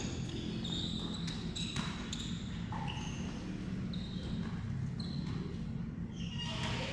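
A basketball bouncing on a hardwood-style gym floor amid players' running, with short high sneaker squeaks scattered throughout, over a steady low hum of the large hall.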